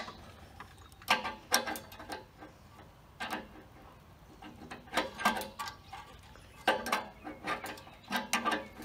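Irregular metallic clicks and clinks of a wrench working a brass compression fitting as a plastic air line is tightened onto a compressor's unloader valve. The clicks come singly or in quick pairs about every half second to a second and a half.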